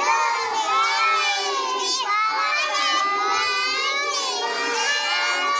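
A crowd of young children's voices, many shouting and calling out at once, dense and steady throughout.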